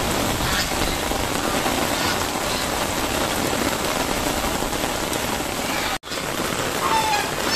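Heavy rain falling steadily on a paved courtyard and garden plants, with a momentary dropout about six seconds in.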